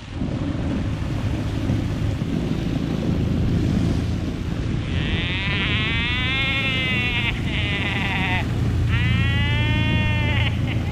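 Motor scooter engine running steadily at speed, pushing a homemade pontoon craft through water, with wind and water noise. About halfway in and again near the end, a high wavering, voice-like sound with gliding pitch rises over the engine.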